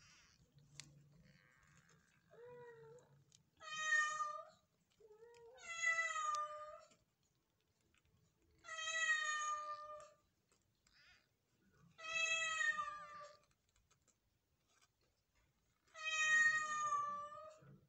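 Newborn Persian kittens mewing: five loud, high, thin calls of about a second each, a few seconds apart, with two fainter, lower squeaks in between in the first half.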